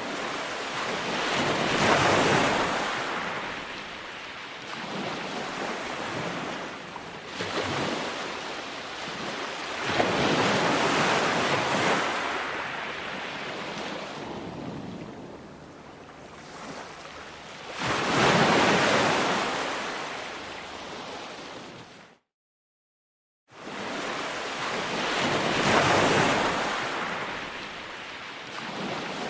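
Ocean waves breaking and washing up a beach, each surge swelling and receding about every eight seconds. The sound cuts to dead silence for about a second and a half roughly three-quarters of the way through.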